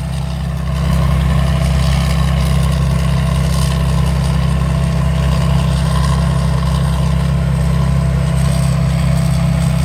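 Kasetphatthana Chao Chang WiFi 2024 combine harvester running steadily while harvesting rice: an even, low engine drone that picks up slightly about a second in.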